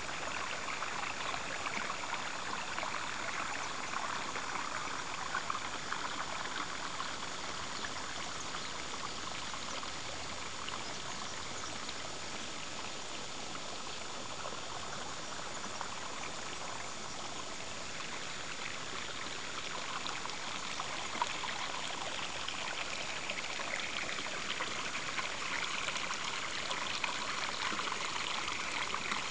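Running water with a steady rushing and trickling, easing off somewhat in the middle and growing stronger near the end.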